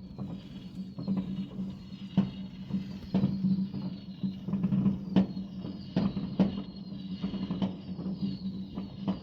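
Fireworks going off: irregular sharp bangs and cracks over a steady low hum, with repeated high falling whistles.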